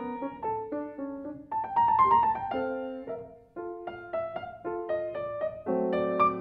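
Piano played at a recital: single notes and chords struck and left to ring, with a brief pause about halfway through before the playing resumes.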